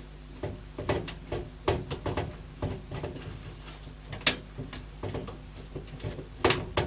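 Screwdriver driving the screws that hold the graphics card's metal bracket to the PC case: a run of irregular small clicks and scrapes, with a sharper tap about four seconds in and again near the end.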